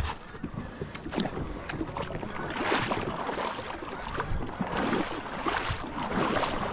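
Water splashing and swishing in repeated strokes, about one a second, as a kayak is moved through shallow river water.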